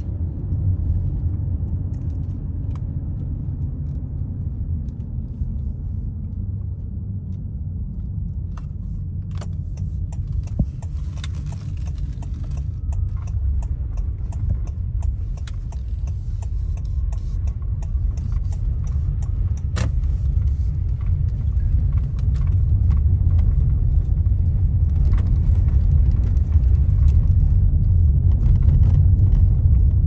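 Low rumble of a car driving slowly over a rough, potholed gravel road, heard inside the cabin, with scattered small clicks and knocks. The rumble grows louder about two-thirds of the way in.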